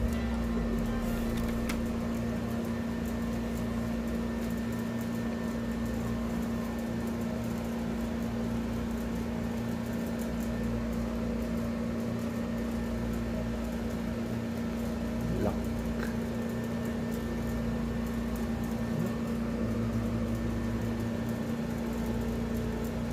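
Steady machine hum over a low rumble, with one faint click about a second and a half in and another about fifteen seconds in.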